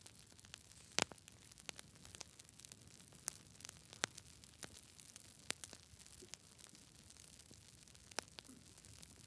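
Campfire crackling: irregular sharp pops and snaps over a faint steady hiss, the loudest about a second in.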